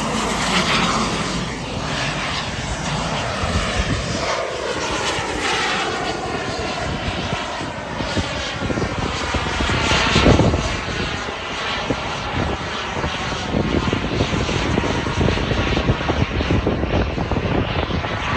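Radio-controlled model aircraft flying passes, its engine note falling in pitch as it goes by, loudest on a pass about ten seconds in.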